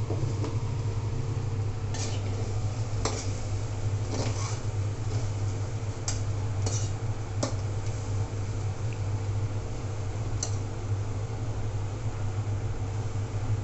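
Metal spatula scraping and clinking against an aluminium kadai while food is scooped out of it into a bowl: several short, sharp scrapes scattered through, over a steady low hum.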